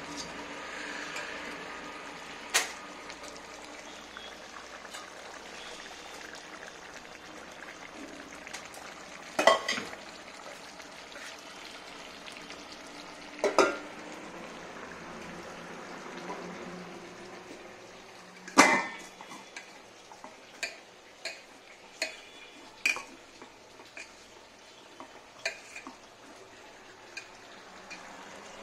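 Metal utensils and aluminium pots clanking and clinking as a biryani is layered: a few sharp clanks, the loudest about two thirds of the way in, then a run of lighter clinks. Underneath is a faint, steady hiss.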